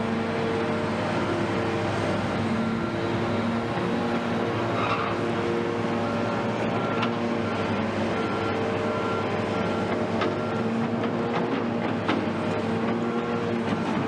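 A steady engine drone with a hum in several held tones that fade in and out, and a few faint clicks in the second half.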